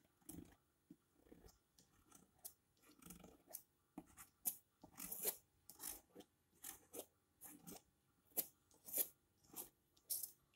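Scratchy, rasping strokes of a painting tool dabbing and dragging thick acrylic paint across a painting board, in an irregular series that comes faster after about four seconds.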